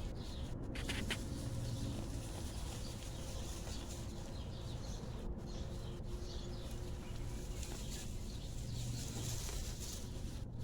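Steady outdoor background noise with a low rumble and faint bird calls.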